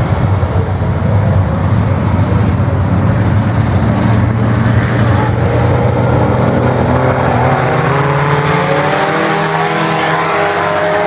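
A field of IMCA Sport Compact race cars running together, their four-cylinder engines blending into a loud drone. Engine pitch climbs steadily through the second half as the cars accelerate.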